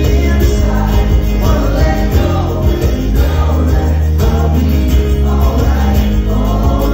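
A man singing a song live into a microphone while strumming an acoustic guitar, with sustained low notes underneath.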